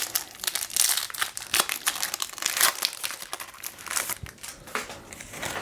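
Foil wrapper of a Pokémon booster pack crinkling continuously as it is opened and handled by hand, a dense crackle of sharp little crackles.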